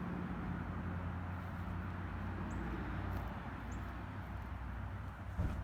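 Outdoor background with a steady low mechanical hum, a few brief high chirps like small birds, and a short low bump near the end.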